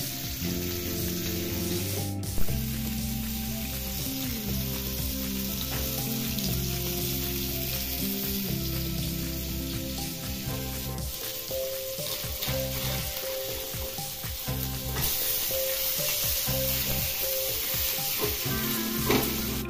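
Fish pieces frying in a shallow pan, sizzling steadily, with a sharp knock about two seconds in. Background music plays under it.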